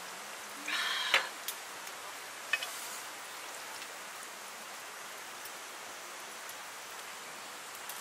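A steady rushing hiss throughout, with a short louder sound about a second in that ends in a sharp knock, then a few lighter clicks: a steel tumbler set down on a wooden camp table and tongs tapping a grill plate.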